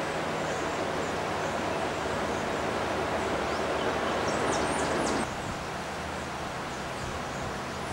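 Steady rushing outdoor background noise in rainforest, with a brief run of very high, thin bird calls about four seconds in. The noise drops suddenly just after five seconds.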